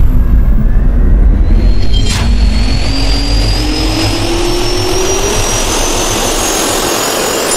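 Jet engine turbine spooling up: a whine that rises slowly in pitch over a deep rumble, with a short hit about two seconds in.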